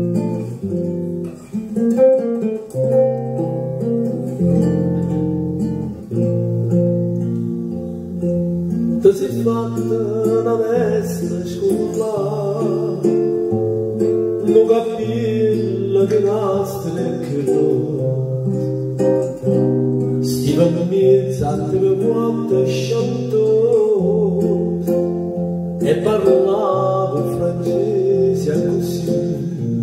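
Acoustic guitar picking the accompaniment of a Neapolitan song, joined by a man's voice singing from about nine seconds in.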